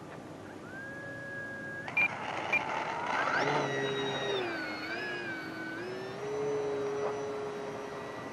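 Electric motor and propeller of an FMS Cessna 182 1500mm RC plane whining in flight. Its pitch rises and falls as it makes a low pass and climbs away, then settles to a steady tone. Two short high beeps come about two seconds in.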